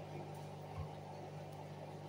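Hoover front-loading washing machine running with its drum full of heavy suds: a steady low motor hum with foamy water sloshing as the drum turns, and one short knock a little under a second in.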